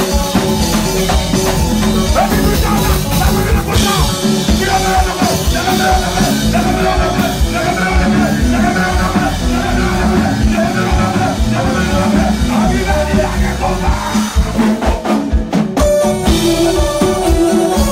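A live kompa band playing loud: an electric guitar and a drum kit under a singer's voice.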